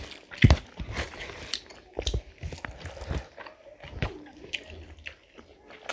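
Close-miked chewing and wet lip-smacking of people eating rice and curry by hand: an irregular run of sharp, moist smacks and squelches.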